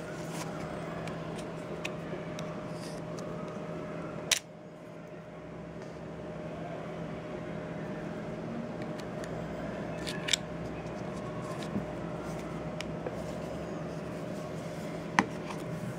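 Handling noise from a small handheld GPS navigator being turned over in the hands: a few sharp clicks and taps, the loudest about four seconds in and near the end, over a steady low hum.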